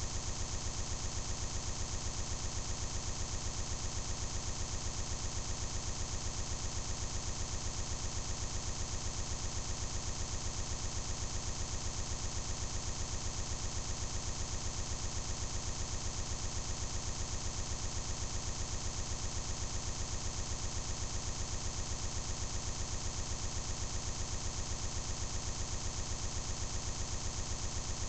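A steady, unchanging buzz made of many evenly spaced tones with a fast, regular flutter: a digital glitch in a corrupted recording, a tiny stretch of audio repeating over and over.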